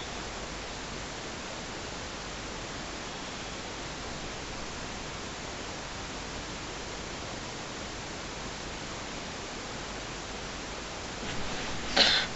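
Steady hiss of a quiet dark room picked up by a camera's microphone. Near the end, a short, sharp rustle as the sleeper suddenly moves in bed.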